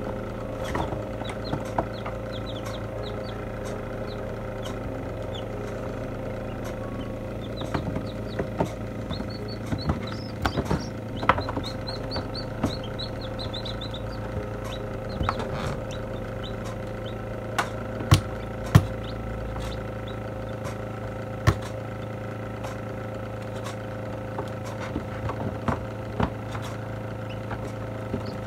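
Newly hatched chicken chicks peeping in short, quick runs, most of them around the middle, over the steady hum of a computer fan fitted inside a still-air incubator. A few sharp taps are scattered through, two of them loud about two-thirds of the way through.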